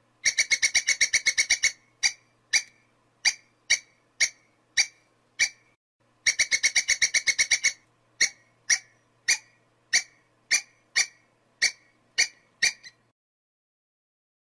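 Squirrel chattering call. A fast run of about ten sharp chirps is followed by slower single chirps, about two a second, and the whole pattern plays twice before stopping near the end.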